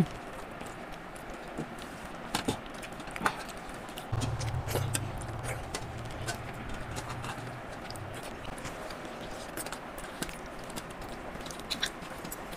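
Eating by hand from large steel thali plates: fingers mixing and scraping soft khichuri against the metal, with scattered light clicks and clinks. A low hum runs for about four seconds in the middle.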